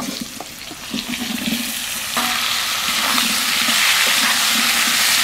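Chopped vegetables going into hot oil in a kadai: a few knocks and a quieter sizzle, then about two seconds in a loud, steady sizzle sets in and keeps going.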